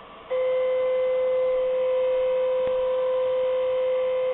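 CNC router's Z-axis stepper motor whining at one steady pitch as it drives the bit slowly down toward an aluminium touch plate during an automatic Z-zero probe. It starts about a third of a second in and cuts off suddenly near the end, the stop that comes when the bit touches the plate and completes the circuit.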